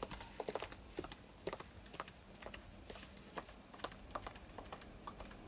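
Quiet, irregular light clicks and taps, several a second, over a low steady hum.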